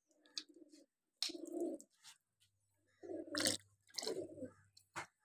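A dove cooing in four short low calls, with a few soft clicks between them.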